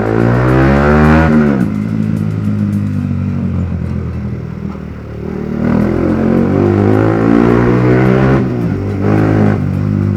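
Yamaha R15 V3's single-cylinder engine through a loud aftermarket exhaust, accelerating under way: the revs climb for about a second and drop at a gear change, hold steady, then climb again and drop twice near the end.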